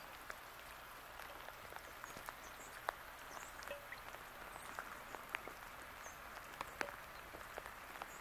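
Light rain: a faint, steady hiss with many irregular single drops clicking on nearby surfaces.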